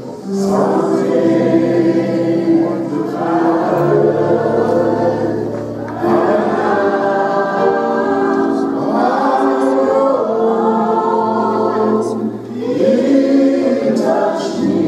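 Gospel choir singing over held low accompaniment notes, in phrases a few seconds long with brief breaks about six seconds in and near the end.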